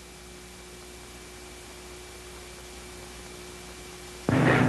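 Steady hiss and faint hum of an old film soundtrack with nothing else on it. A much louder noisy sound cuts in suddenly near the end.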